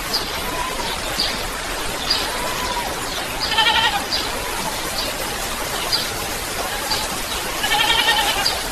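Steady rain hiss with repeated short high chirps and two longer wavering animal calls, one about three and a half seconds in and one near the end.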